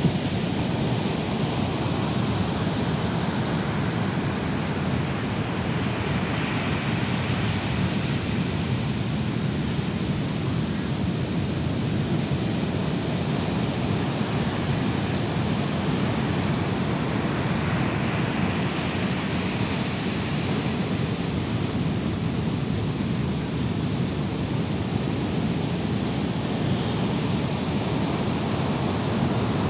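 Ocean surf breaking on a beach, a continuous wash of waves. Waves break a little brighter about six seconds in and again near twenty seconds.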